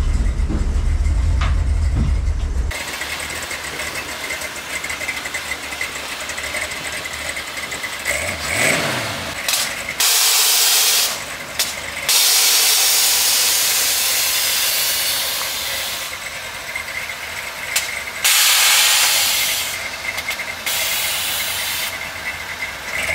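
Air-suspension valves on a bagged custom Ford Ranger hissing loudly in several long bursts in the second half as the truck dumps air and drops its body to the ground. Its engine runs underneath, with a heavy low rumble in the first couple of seconds and a brief rev in the middle.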